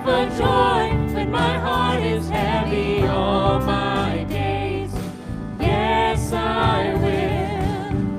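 A man and a woman singing a contemporary worship song together into microphones, with sustained instrumental backing underneath.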